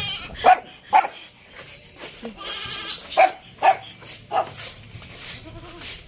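Goat bleating, one wavering call about two and a half seconds in, with several short, sharp knocks and sounds around it.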